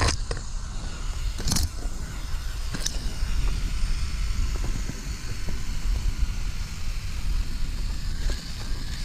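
Axial Capra RC rock crawler's electric motor and drivetrain running as it crawls along a dirt trail, over a steady low rumble. A few sharp crackles come in the first three seconds.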